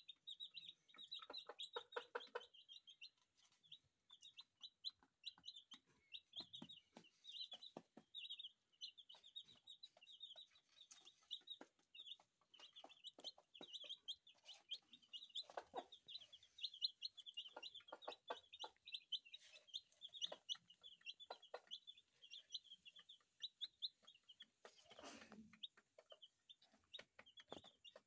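Two-day-old aseel chicks peeping almost without a break: a stream of short, high chirps. A hen's lower clucks come in now and then.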